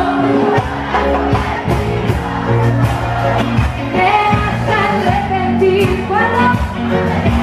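Live amplified cumbia band playing, with a woman singing the lead melody into a microphone over bass and a steady beat of about three drum strokes a second.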